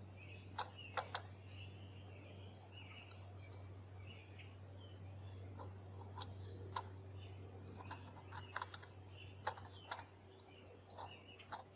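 Irregular sharp clicks and taps from birds feeding, a dozen or so scattered through, over faint soft bird chirps and a steady low hum.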